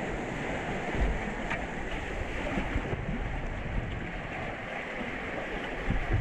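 Rushing whitewater churning around a kayak's bow, a steady roar of moving water with a few low thumps against the microphone.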